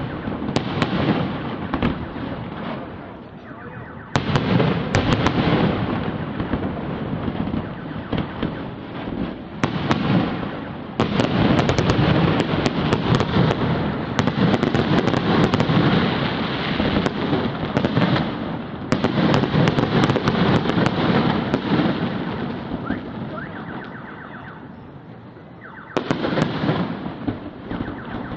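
Aerial fireworks display: shells bursting in waves of dense crackling and booming. The loudest stretch runs from about eleven to twenty-two seconds in, then it eases and surges once more near the end.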